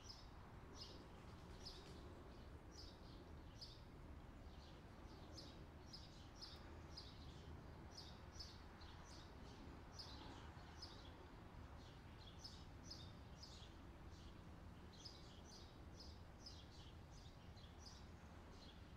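Faint bird chirping: short, high notes in quick clusters, repeating throughout over a low steady background hum.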